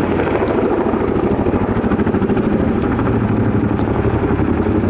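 Boeing CH-47 Chinook tandem-rotor helicopter in a steep spiral descent, loud, with the rapid, even pulsing of its characteristic rotor blade slam.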